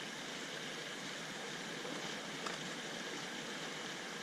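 Creek water running, a steady even rush, with one faint tick about two and a half seconds in.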